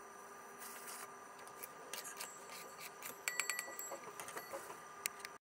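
Faint clicks, taps and scrapes of a thin metal cup being handled and fitted onto a blender motor's shaft, with a quick run of metallic taps about three and a half seconds in that ring briefly.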